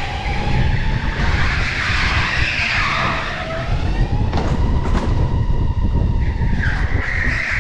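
Electric go-kart's motor whining, its pitch rising and falling with speed, over tyres squealing through the corners on the polished indoor track floor. Two or three sharp knocks come between about four and five seconds in.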